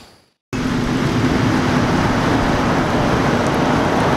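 Steady road-traffic noise, a loud, even rush with a faint low hum, cutting in suddenly about half a second in after a brief silence.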